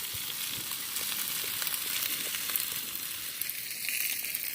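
Chicken wings and vegetables frying on a Blackstone 17-inch propane flat-top griddle: a steady sizzling hiss with small scattered pops.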